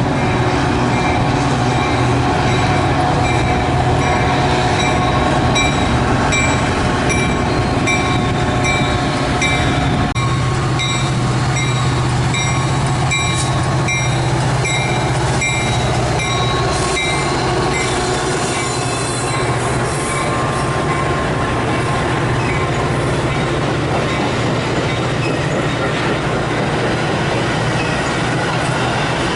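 Metra commuter train pulling into the station behind its diesel locomotive: a steady engine hum with rolling wheel noise and wheel squeal as it comes in. For roughly the first two-thirds there is also a regular high-pitched tick about twice a second.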